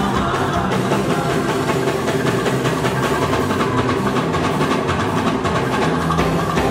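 Live gospel band music played loud, with drums keeping a steady beat over a moving bass line.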